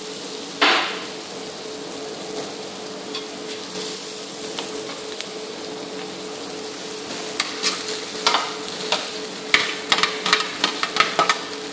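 Spiced onion masala frying and sizzling in a kadai over a steady faint hum. From about seven seconds in comes a quick run of sharp clicks and scrapes as boiled potatoes are tipped off a steel plate into the pan, the plate knocking against the kadai.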